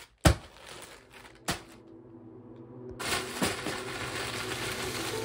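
Plastic mailer bags of clothing dropped onto carpet: two sharp thuds, the first the loudest, then the plastic crinkling steadily from about three seconds in.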